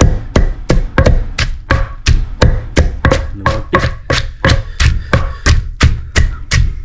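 Steady, rapid chopping with a knife on a cutting board, about three strikes a second.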